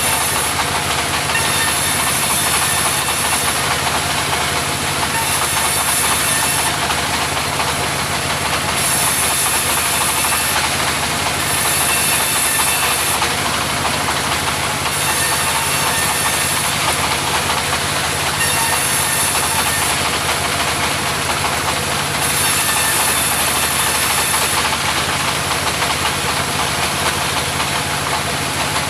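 Mobile sawmill running steadily, its engine drone constant under a high hiss that swells and fades every second or two.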